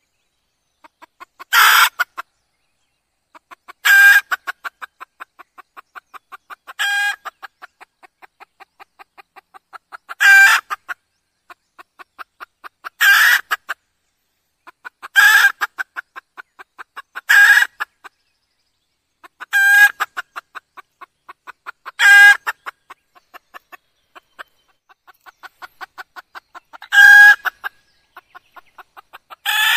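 Red junglefowl hen calling: a loud cluck every two to three seconds, each followed by a run of quieter, quick clucks that fade away.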